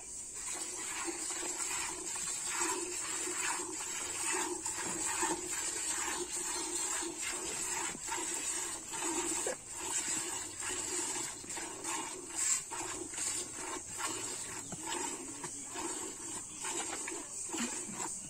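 Cow being milked by hand: repeated short squirts of milk hitting a steel bucket. Insects chirr steadily in the background.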